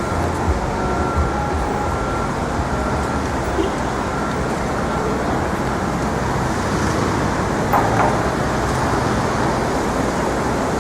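Steady city street traffic noise, with a short, higher-pitched sound about eight seconds in.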